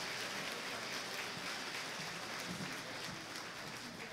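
Audience applauding, a dense clapping that gradually dies down.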